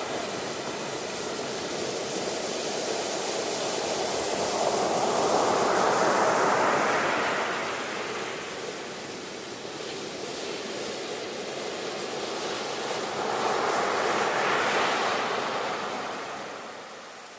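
Ocean waves washing onto a shore: two slow swells of surf hiss, building and breaking about six and fifteen seconds in, easing off between them and near the end.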